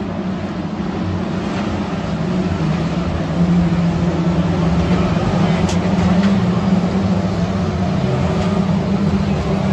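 Saloon stock car engines running together as a pack laps the shale oval, a steady engine sound with tyre and track noise over it, a little louder from about three and a half seconds in as the cars come round the near bend.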